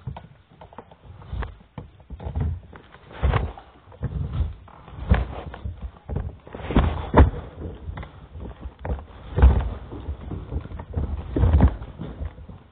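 Irregular footsteps and knocks on a hard tiled floor, about one a second, some of them heavy thumps.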